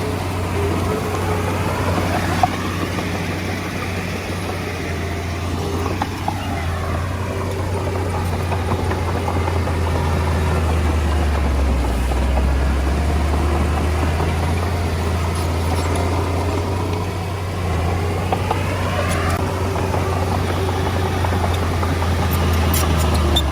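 Komatsu D20A crawler bulldozer's diesel engine running steadily, with a few sharp clicks near the end.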